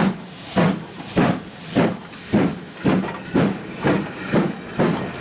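GWR Manor class 4-6-0 steam locomotive 7820 Dinmore Manor pulling away with its train, its two-cylinder exhaust chuffing in a regular beat that quickens from under two to over two chuffs a second as it gathers speed.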